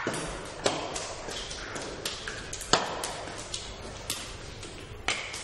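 Sharp taps and knocks echoing around a domed stone bath hall, coming at irregular intervals. The loudest come about half a second in, near three seconds, and near the end.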